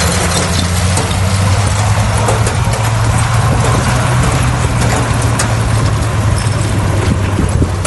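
Bulldozer's diesel engine running steadily at a constant pitch, with scattered sharp clicks and rattles over it.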